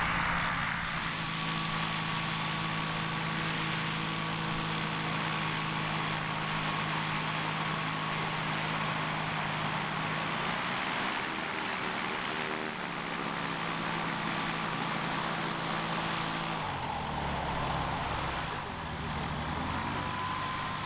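Light aircraft engine running with its propeller turning, a steady drone. Its pitch shifts about ten seconds in and again about seventeen seconds in.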